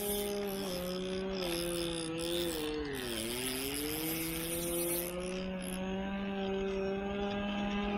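An engine running steadily, its pitch dropping about three seconds in and climbing back over the next two seconds.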